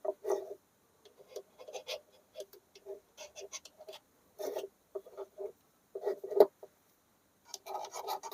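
Irregular small clicks and taps of a precision screwdriver blade being worked through a demagnetizer, with a few louder knocks among them.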